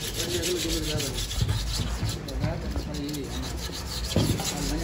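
Abrasive paper rubbed by hand back and forth over the metal casing of a Hino FM1J truck gearbox, a scratchy rasp in quick repeated strokes.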